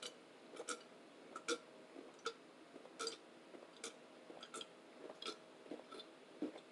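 Close-up chewing of food, heard as faint short mouth clicks at an uneven pace, about two a second.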